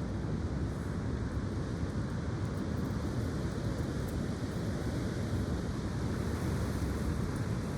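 Strong, gusty wind blowing steadily, buffeting the microphone with a low rumble.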